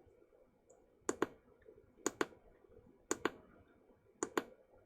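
Push button on a FNIRSI handheld oscilloscope being pressed four times, each press giving a sharp double click of press and release, about one press a second.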